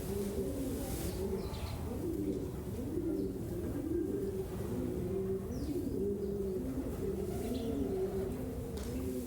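A flock of birds cooing: many low, overlapping calls, one after another without a break, with a few faint higher chirps among them.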